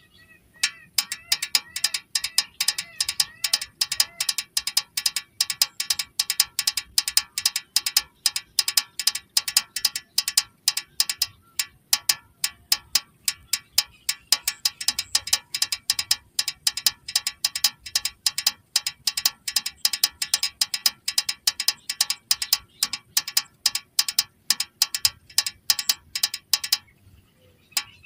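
Rapid, evenly repeated clicking from a toy vehicle's mechanism, several clicks a second, each with a short bright ring like a small ratchet. It breaks off briefly about eleven seconds in and again for about a second near the end.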